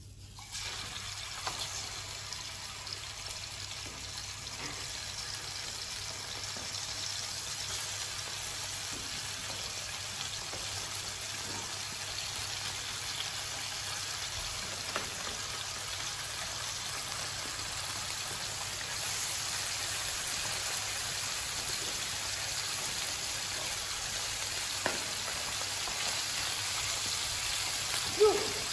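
Food sizzling in hot oil in a frying pan, a steady hiss that starts suddenly as pieces go into the pan and grows slightly louder, with a few faint clicks and one sharp knock near the end.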